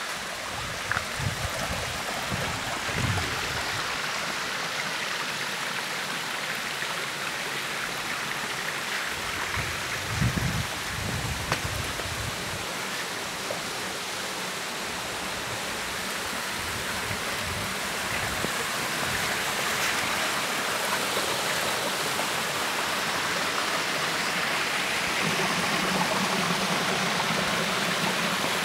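Mountain stream rushing steadily, growing a little louder over the last few seconds. A few brief low thumps come in the first seconds and again about ten seconds in.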